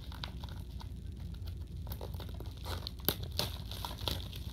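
DVD packaging crinkling and tearing as it is picked open by hand, in scattered sharp crackles, the loudest few about three seconds in, over a steady low hum.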